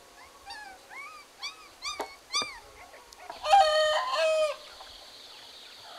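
A rooster crows once, loud and about a second long, a little after halfway. Before it comes a run of short rising-and-falling chirping calls.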